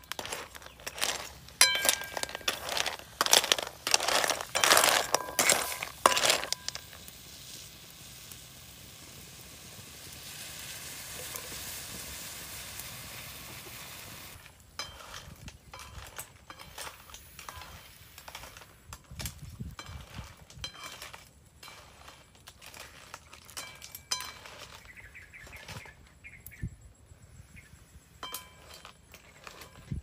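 A knife chopping on a hard surface in a run of loud knocks, then a steady hiss for several seconds, then clams in their shells clinking against a metal wok as they are stirred over the fire.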